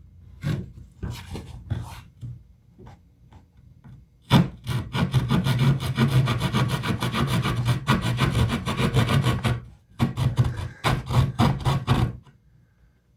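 The small saw blade of a Gerber Truss multi-tool cutting with hand strokes. A few scattered strokes come first, then about five seconds of quick, even back-and-forth rasping. After a short break there are a few more strokes, and then it stops.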